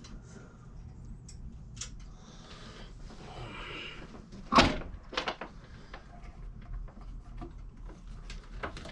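A few sharp clicks and knocks, with one loud knock about halfway through and a smaller one just after it, over a steady low electrical hum.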